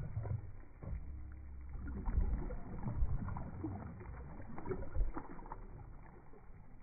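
Muffled low rumble with faint, scattered splashes and sloshing of water at the side of a boat.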